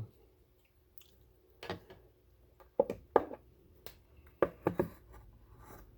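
Handling of a Grendel P30 pistol: five or six sharp, separate clicks and taps of metal and polymer parts, as when the magazine is removed and the gun is checked unloaded.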